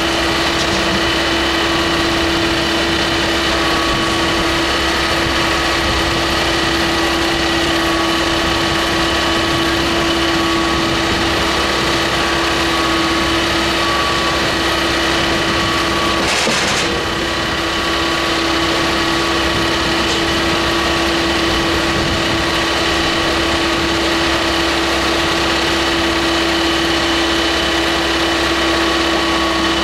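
Firewood processor's engine running steadily, with a constant droning note over it. About halfway through there is a brief rush of noise.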